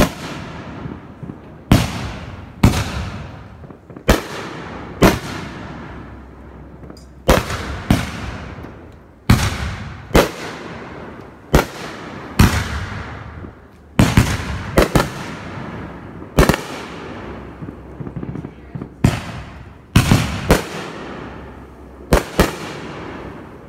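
Consumer aerial fireworks bursting overhead in a run of sharp bangs, about one a second and irregularly spaced, each followed by a short fading tail.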